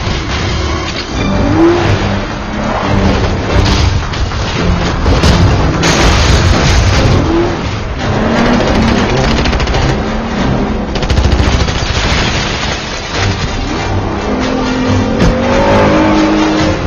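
Film car-chase sound mix: car engines running at high revs, tyre squeals, and bursts of gunfire.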